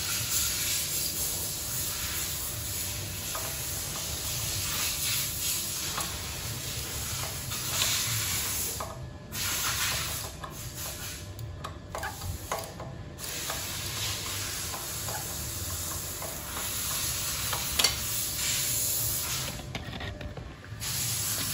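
Steady hiss with scattered small clicks and scrapes of a wrench working a nut welded onto the broken exhaust stud of a Honda Ape 50's cylinder head, backing the stud out.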